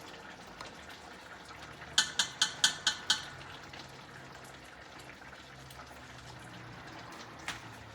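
A pot of curry chicken simmering quietly, with a quick run of about six sharp metallic clinks, a utensil knocking against the pot, about two seconds in, and one more clink near the end.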